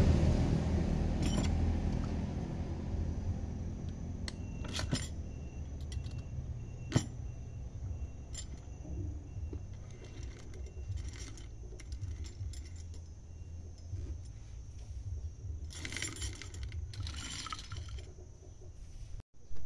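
Light metallic clicks and clinks, single ones at first and small rattling clusters near the end, as the piston cylinder blocks of a Kubota DC70 hydrostatic transmission (HST) pump are turned and pressed by hand in the open pump housing.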